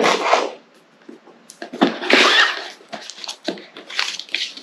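Cardboard packaging being handled: a sharp knock at the start, then the box's cardboard insert scraping and rustling as it is pulled out, with light clicks and knocks.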